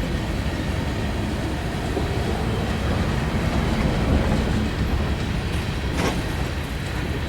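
Slow freight train rolling past, a steady low rumble of railcars with a single wheel click near the end.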